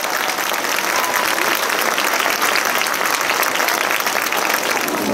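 Audience applauding steadily at the end of a rhythmic gymnastics routine.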